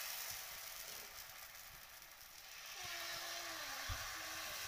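Rice-flour batter for chilka sizzling on a hot oiled tawa as it is poured and spread, a steady hiss. One soft thump near the end.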